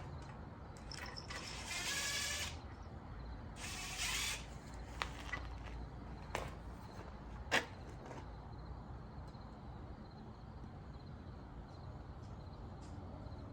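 Two short hissing sprays about two seconds apart, then three sharp knocks, the last the loudest, over a low steady background hum.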